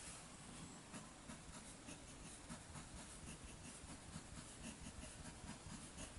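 Fountain pen's steel medium Bock nib faintly scratching over thin 52 gsm Tomoe River paper in short, quick strokes, several a second.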